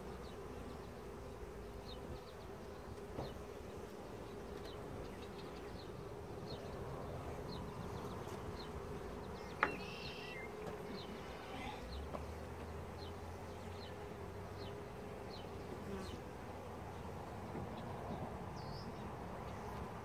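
Honeybees humming steadily, the buzz of a colony on frames of comb, with one sharp click about halfway through.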